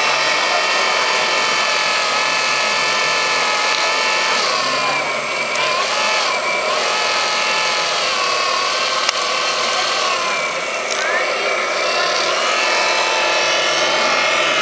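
Radio-controlled scale hydraulic excavator in Hyundai livery, its electric hydraulic pump giving a steady high whine that sags and bends in pitch twice as the boom and bucket are worked. A single sharp click about nine seconds in.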